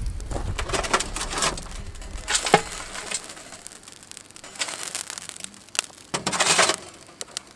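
Hot charcoal briquettes tipped from a metal chimney starter onto a cast-iron Dutch oven lid: irregular clinking, rattling and crunching of coals in several bursts, the loudest crunching rattle coming near the end.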